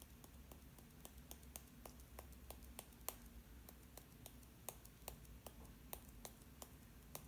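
Faint, irregular light clicks, several a second, from a small pot of Brusho watercolour crystals being shaken and tapped over watercolour paper to sprinkle the dry crystals.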